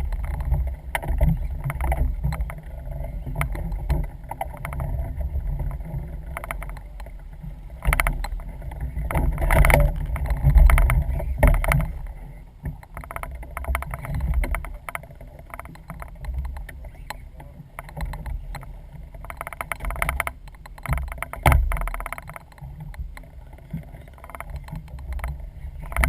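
Small fishing boat on the water: an uneven low rumble with scattered knocks and bumps.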